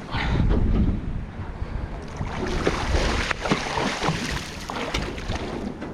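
Wind buffeting the microphone and water sloshing around a small boat, with a gust in the first second and scattered short knocks throughout.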